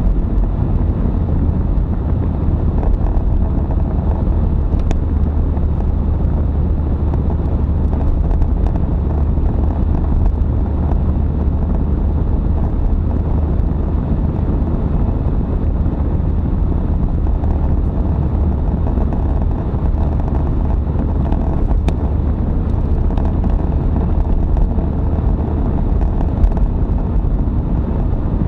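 Car driving at steady speed, heard from inside the cabin: a steady low rumble of engine and tyre noise.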